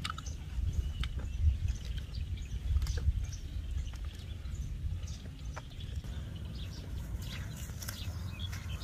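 Wind rumbling on the microphone, with scattered short bird chirps and a few soft clicks.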